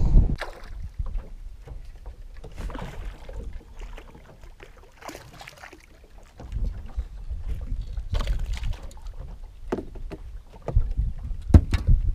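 Wind rumbling on the microphone, with scattered sharp knocks and clicks from fishing gear being handled on a boat.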